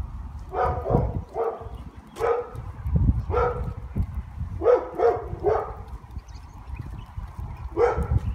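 Dog giving short, high-pitched calls, about nine in all in quick bunches, over a low rumble on the microphone.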